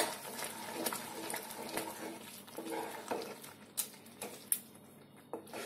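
Wooden spatula stirring thick dal in a metal pan, wet squelching and scraping, with a few sharp knocks of the spatula against the pan near the end.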